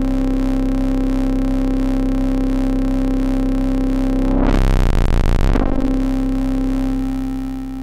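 Moog Werkstatt-01 synthesizer droning through its transistor ladder filter with feedback: a steady, buzzy held tone. About four seconds in it breaks up into a harsh, noisy distortion for about a second and a half, the filter overloading as the resonance is turned fully counterclockwise, then settles back into the drone. It gets a little quieter near the end.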